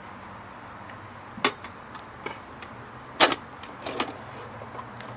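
A few short, sharp metal clanks and clinks, the loudest about three seconds in, as steel tongs are handled and the door of a Kerr dental inlay burnout furnace is opened.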